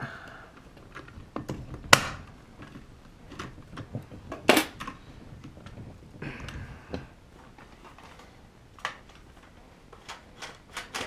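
Metal clicks and knocks from handling and working a Kaba Simplex 1000 mechanical push-button lock and its knob, with two sharp snaps about two and four and a half seconds in and a quick run of clicks near the end.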